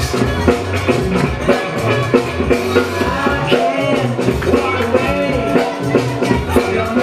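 Music with a steady drum-kit beat, the break music the dancers are battling to.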